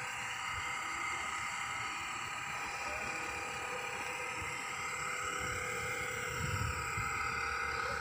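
Steady mechanical hum: several constant tones over a low rumble, unchanging throughout, with no separate event standing out.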